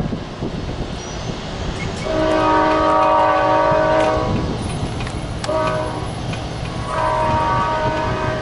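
Amtrak passenger train's horn sounding as the train approaches: a long blast, a short one, then another long blast, each a chord of several notes. Under it runs the steady low rumble of the train.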